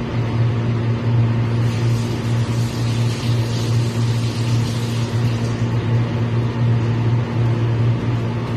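A steady, loud low hum that drones on without change.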